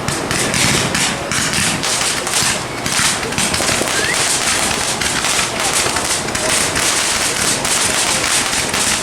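Fireworks crackling: a dense, unbroken run of sharp pops and crackles, with people talking underneath.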